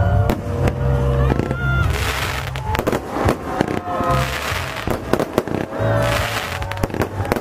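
Aerial fireworks bursting: many sharp bangs in quick succession, with spells of crackling about two and six seconds in, and whistling tones between them.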